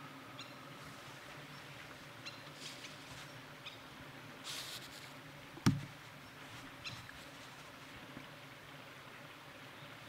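Faint steady background noise with a low hum, a few small ticks, and one sharp knock about five and a half seconds in.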